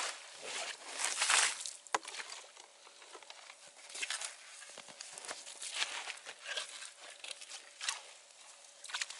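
Slush and broken ice being scooped and scraped in a hole in lake ice, with boots crunching in the snow: an uneven run of crunches and wet scrapes, loudest about a second in, with a sharp knock about two seconds in.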